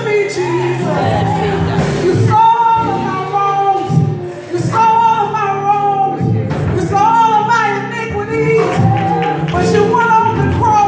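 Church praise team singing a worship song over musical accompaniment, a woman's voice leading into a microphone with other voices joining. The singing comes in held phrases about two seconds long, with short breaks between them.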